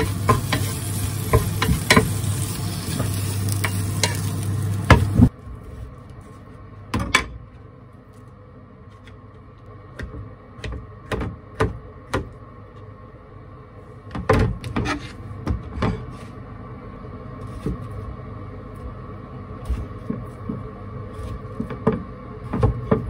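Red bell pepper and garlic sizzling loudly in a frying pan while being stirred with a wooden spatula, with a low hum under it; this stops suddenly about five seconds in. After that, much quieter scattered knife clicks and knocks on a plastic cutting board as an avocado and a sweet potato are cut.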